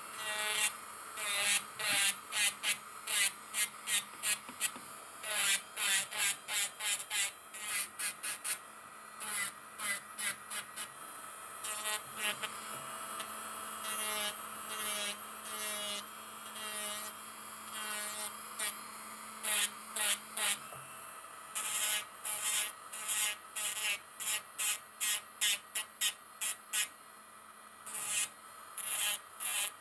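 Electric nail drill (e-file) running with a steady whine while its sanding band grinds gel polish off a fingernail in quick repeated passes, each pass a short rasping burst, with a few brief pauses.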